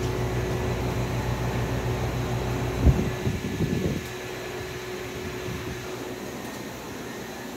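Steady low hum of the equipment of a standing Seibu 2000 series electric train car, with a faint steady whine over it. About three seconds in there is a sharp thump and some clatter, and about a second later the low hum drops away, leaving a quieter hum.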